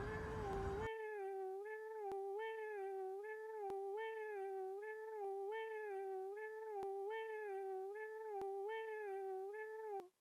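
A steady, pitched, even tone that wobbles slightly in a short repeating pattern, with faint evenly spaced clicks. It cuts off suddenly near the end.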